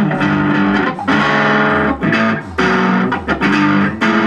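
Electric guitar played in a repeating chord riff, phrased in bursts of about a second with brief breaks between them, with a didgeridoo droning low underneath.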